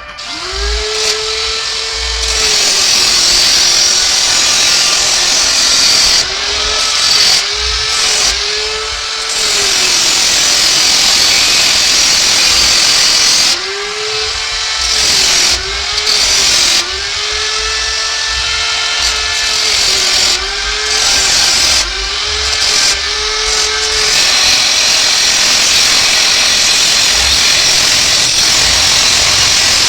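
Power drill run in about a dozen short trigger pulls, its motor spinning up, holding and winding down each time over a steady hiss. The last few seconds are steady hiss only.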